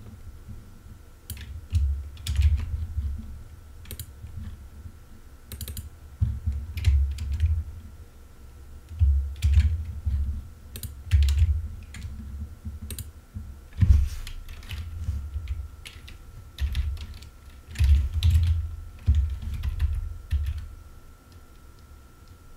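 Computer keyboard being typed on in irregular bursts: sharp key clicks with dull low thumps from the keystrokes, under a faint steady high tone.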